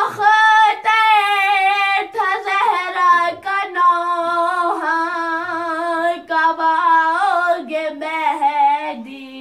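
A boy singing an Urdu noha (mourning lament) unaccompanied, drawing out long held notes that waver and glide between pitches. The voice drops away near the end.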